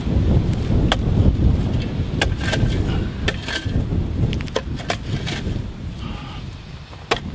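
Steel shovel blade striking and scraping into hard, dry clay, which chips like concrete: a series of irregular sharp strikes over a steady low rumble.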